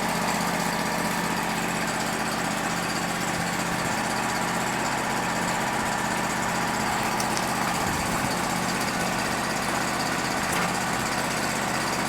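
A steady, even engine-like hum, like a motor idling, with no change in pitch or level.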